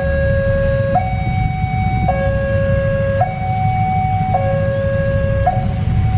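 A two-tone electronic level-crossing warning alarm alternates steadily between a lower and a higher tone, each held about a second. Beneath it runs the low rumble of an approaching diesel locomotive.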